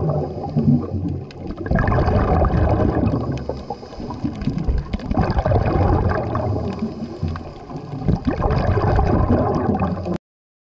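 Scuba regulator exhaust bubbles gurgling, heard underwater, swelling in surges about every three seconds with quieter dips between; it cuts off suddenly near the end.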